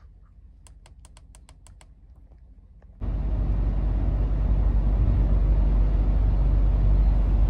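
A quick run of about eight light clicks, then, starting abruptly about three seconds in, the loud steady low rumble of a truck on the move, which cuts off sharply at the end.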